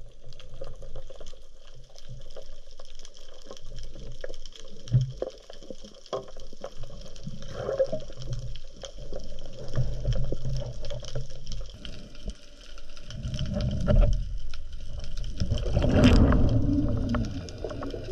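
Underwater sound as picked up by a camera in a housing: a low rumble of moving water with scattered clicks and knocks. About two-thirds of the way in and again near the end it swells into louder bubbling gurgles.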